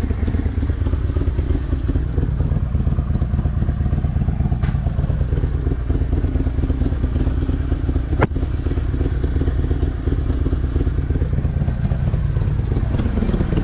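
Harley-Davidson V-twin motorcycle engine idling steadily, with two sharp clicks about five and eight seconds in, the second louder.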